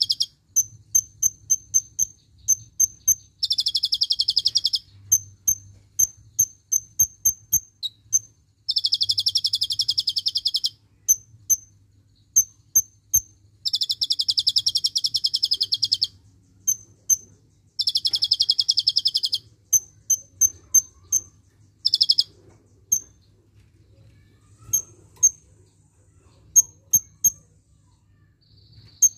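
Van Hasselt's sunbird (kolibri ninja) singing: sharp high chips about twice a second, broken by several rapid trills lasting a second or two each. Near the end only a few scattered chips are left.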